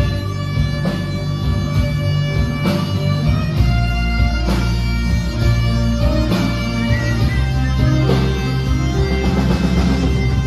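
A Celtic rock band playing live: bagpipes carry the tune over electric guitar and drums, with held drone notes and a steady beat about once a second.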